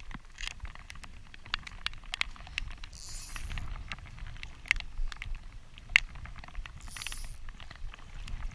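Rain starting to fall, drops tapping irregularly close to the microphone over a low rumble of wind. Two short high hisses cut through, about three seconds in and again near the end.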